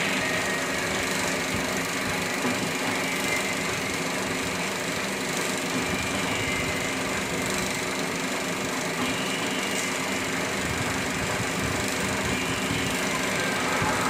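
35mm film projector running, its film-advance mechanism clattering in a fast, steady rhythm.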